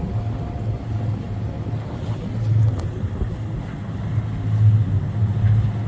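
Sailing yacht's engine running at a steady low drone while under way, with wind on the microphone and water noise over it.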